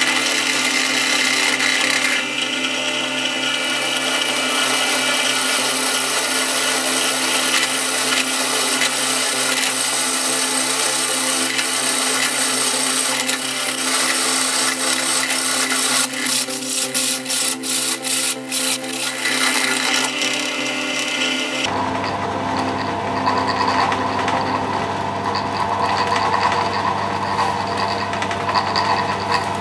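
Bench drill press running, its twist drill bit cutting through a steel flat bar with a steady grinding, scraping noise over the motor hum; the cut falters briefly around 16 to 19 seconds in. About 22 seconds in the cutting noise stops abruptly, leaving a steadier, duller mechanical hum.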